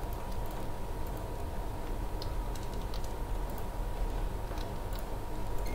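A few light computer mouse clicks scattered through, over a steady background hum with a thin steady tone.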